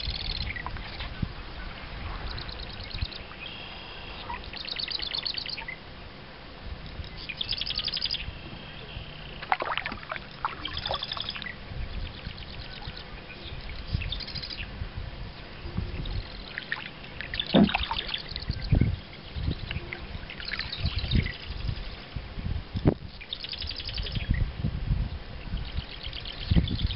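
Songbirds singing short phrases, repeated every second or two, over water trickling and splashing from kayak paddle strokes, with a few sharp knocks along the way.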